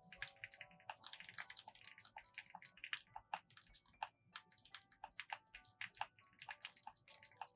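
Fast, irregular typing on a mechanical keyboard with pre-lubed Gateron Oil King linear switches in an aluminum case: a steady stream of quiet key clacks, with soft background music underneath.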